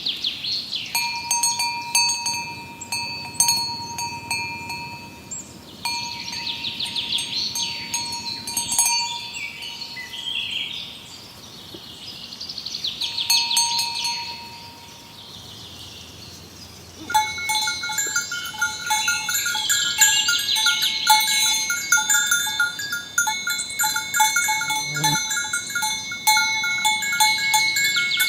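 Metal bells hung on cattle clinking and ringing as the cows walk along, the strokes coming faster and closer together in the last third. A shrill hiss swells and fades several times behind the bells.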